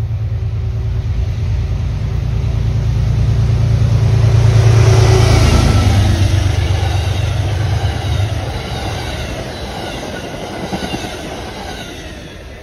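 Amtrak passenger train passing close by: the diesel locomotive's engine drone builds to a peak about five seconds in, its steady tone dropping in pitch as it goes by. The stainless-steel passenger cars follow with the wheels clattering on the rails, fading near the end.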